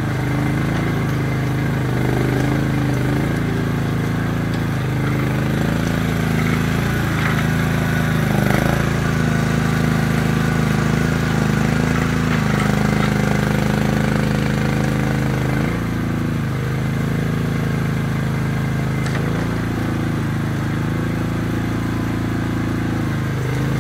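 Mini excavator engine running steadily while digging, its pitch dipping briefly several times as the arm and bucket work the soil.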